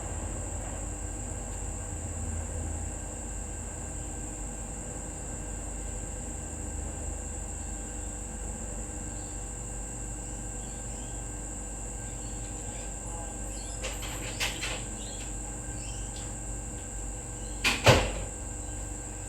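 A steady high cricket trill over a low hum. A few light knocks come about fourteen seconds in, then a loud double bang near the end, like a door shutting.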